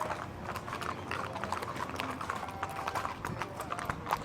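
Horse hooves clip-clopping: a steady, irregular run of hoof strikes.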